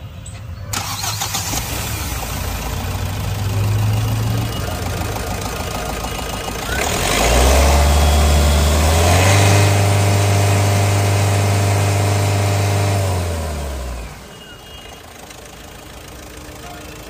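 Mahindra Thar's 1.5-litre four-cylinder D117 CRDe diesel engine running under the open bonnet: a short blip of the throttle around four seconds in, then revs rising at about seven seconds and held high for roughly six seconds before falling away near the end.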